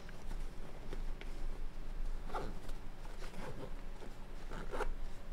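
Zipper on a Condor H2O nylon pouch's front pocket being pulled by hand, along with rustling of the fabric pouch as it is handled. The zipper sounds come as a few short strokes in the second half.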